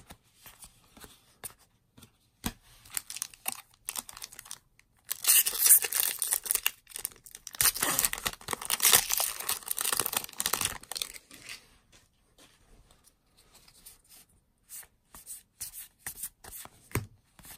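A Magic: The Gathering booster pack's foil wrapper is torn open and crinkled, a loud ripping and crackling that lasts several seconds in the middle. Before and after it come soft clicks and slides of trading cards being flipped through by hand.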